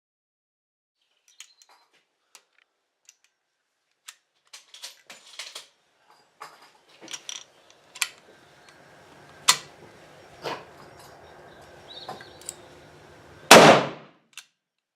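Shots at a rifle range: scattered light clicks and pops, then sharper cracks in the second half, and the loudest shot near the end with a short ringing tail.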